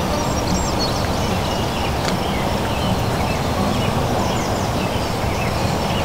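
Small birds chirping short, high, down-slurred calls over and over across a marsh, over a steady rush of wind on the microphone.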